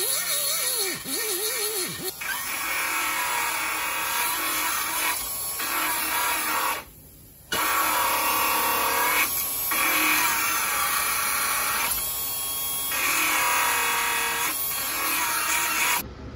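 Background music, then a handheld power tool cutting sheet metal in several passes. Its pitch sags under load and recovers, with short pauses between passes. The sound cuts off abruptly near the end.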